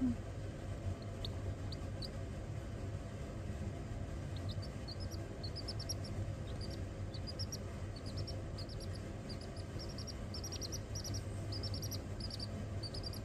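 Baby chick peeping: a few scattered high peeps at first, then from about four seconds in, quick runs of short peeps, several a second. A steady low hum lies underneath.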